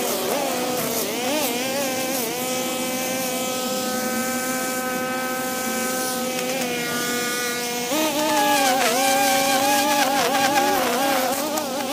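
Two-stroke gas string trimmer running while cutting overgrown grass, its engine pitch rising and falling with the throttle. The pitch holds steady for a few seconds in the middle, then the trimmer gets louder and wavers again about eight seconds in.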